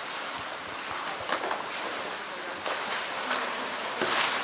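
A steady, high-pitched drone of summer cicadas. Water splashes and sloshes around the polar bear and the floating plastic drum about a second in and again near the end.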